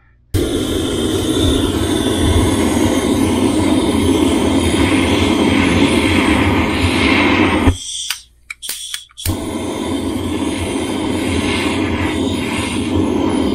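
Kollea kitchen torch flame hissing steadily as it melts and caramelizes the sugar topping of a crème brûlée. It cuts out a little past halfway, a few clicks follow, and then it burns again until near the end.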